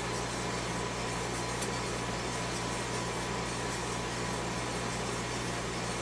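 Small electric drum coffee roaster running with a steady mechanical hum, the beans roasting between first and second crack.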